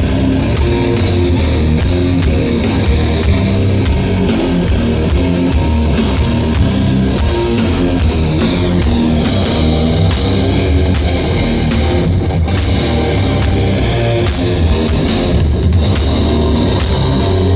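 Live heavy rock band playing: distorted electric guitars, bass and a drum kit with frequent cymbal crashes.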